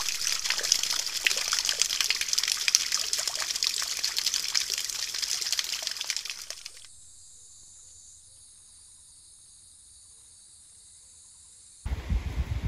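Water splashing and trickling in a small forest pool for about seven seconds, a dense crackle of small splashes, after which only a faint steady hiss remains; a short burst of low rumble comes near the end.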